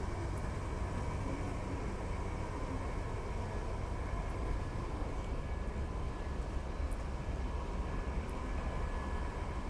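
Steady city traffic noise: a continuous low rumble of road traffic with a faint hiss and hum over it.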